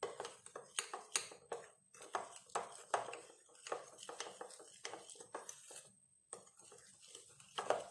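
Metal spoon scraping and knocking against a bowl in irregular strokes while stirring a thick, crumbly mix of biscuit powder and melted chocolate, with a brief pause about six seconds in.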